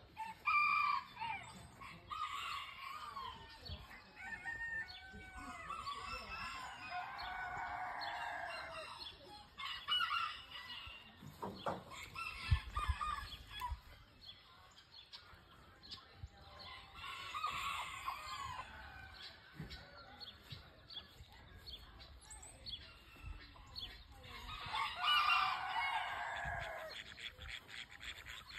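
Roosters crowing several times, each crow a long drawn-out call a few seconds apart, with clucking in between.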